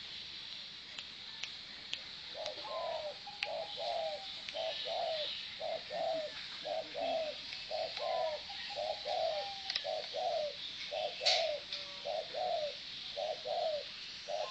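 Zebra dove (merbok) singing: a long, evenly spaced run of short, soft cooing notes, beginning about two seconds in.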